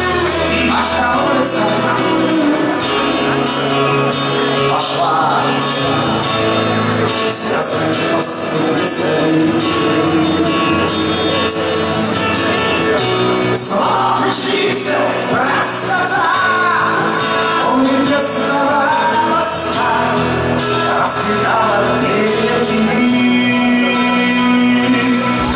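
Live band playing a rock-pop ballad while a male lead vocalist sings with a strained, shouting delivery.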